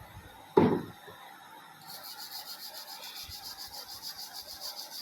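Brush or cloth scrubbing the gold connector pins of a hard disk with isopropyl alcohol, in quick, even strokes about seven a second from about two seconds in. A single loud, sharp sound comes about half a second in.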